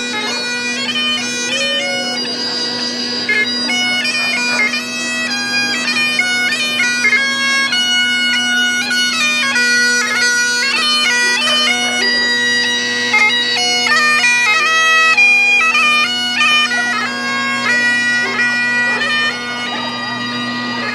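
Bagpipes playing a tune: a steady drone held underneath a chanter melody of quickly changing notes.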